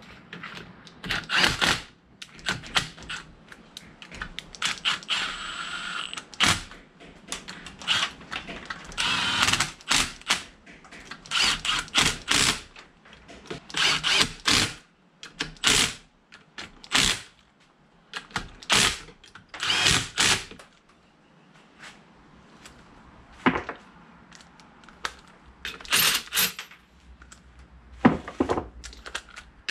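Mechanic's tools working in short, irregular bursts, each from a fraction of a second to about a second long, with one longer whirring run about five seconds in.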